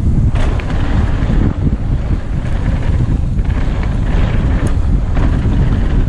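Downhill mountain bike riding a dirt trail, heard through a bike- or helmet-mounted action camera: wind buffeting the microphone and tyres rumbling over the dirt, with a few knocks and rattles as the bike hits bumps.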